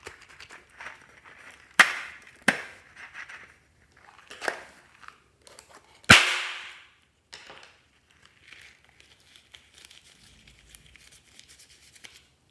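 Clear slime being squished and pressed by hand, with several sharp pops of trapped air, the loudest about six seconds in, among softer crackling and squelching. The sound stops suddenly just before the end.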